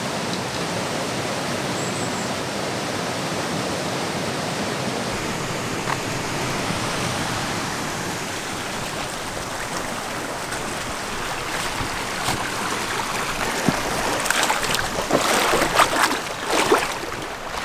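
Fast-flowing stream water rushing steadily. Near the end, a run of irregular knocks and scuffs sounds over it.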